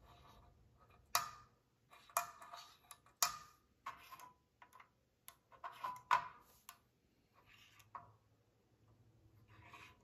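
Aluminium magnetic fidget toys clicking and tapping as they are handled: a scattered series of light metallic clicks, a few of them ringing briefly.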